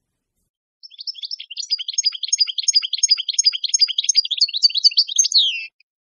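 European goldfinch singing a fast, twittering song of quick chirps and trills. It starts about a second in and ends on a falling note shortly before the end.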